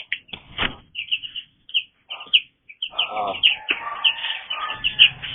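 Young broiler chicks peeping over and over in short, high chirps, with a stretch of scuffling and wing flapping in the middle.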